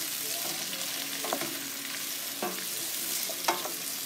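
Julienned zucchini, carrot and yellow pepper strips sizzling in a stainless steel frying pan while being stirred with a wooden spoon. The spoon knocks against the pan three times.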